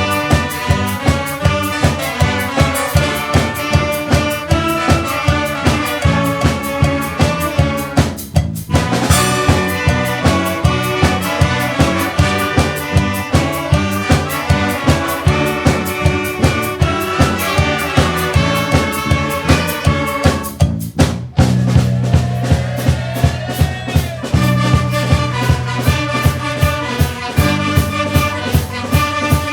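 Lively music with brass and a steady, driving beat. It drops out briefly about eight seconds in and again around twenty-one seconds.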